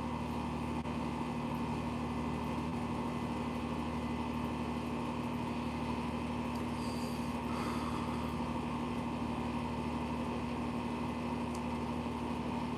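Steady mechanical hum at one constant pitch, unchanging throughout.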